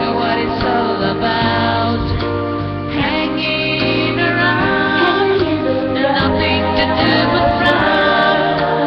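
A song with a woman singing held, sustained notes over instrumental backing and a bass line that moves every second or two.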